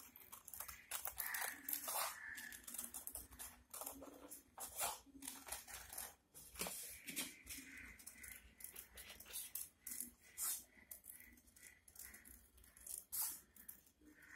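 Scissors snipping through thin craft paper, a long run of short, sharp cuts at irregular spacing as circles are cut out.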